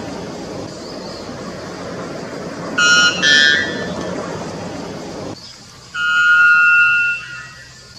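White bellbird calling: a loud, short double note about three seconds in, then a long held call near the end that steps up in pitch partway through. A steady background hiss underneath cuts off abruptly about five seconds in.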